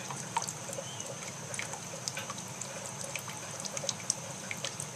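Water running out of a boiler as it is drained to lower the water level, a steady trickle with scattered drips and splashes; draining it this way tests the boiler's low-water cutoff.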